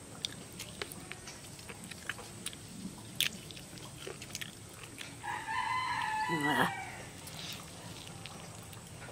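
A rooster crows once about five seconds in, a call of about a second and a half that drops in pitch at the end. Around it come faint clicks of someone biting and chewing chicken meat eaten by hand.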